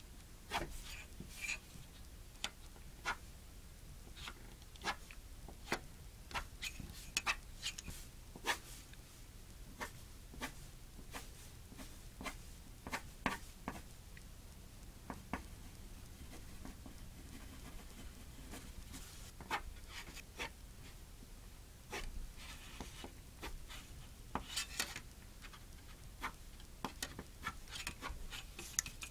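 Graphite pencil scratching on paper, stroking lines along a steel ruler and freehand: an irregular run of short, sharp strokes, with a stretch of longer, hazier strokes about three quarters of the way through.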